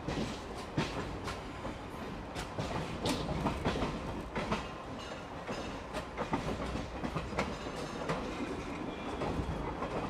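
ICF passenger coaches running on the track: wheels clicking irregularly over rail joints, over a steady rumble of wheels on rail.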